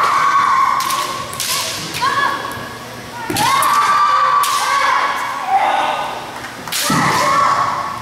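Kendo players' kiai: long, high, held shouts. Through them come several sharp cracks of bamboo shinai strikes and thuds of stamping feet on a wooden gym floor, with the loudest shouting and strikes about three seconds in and again near the end.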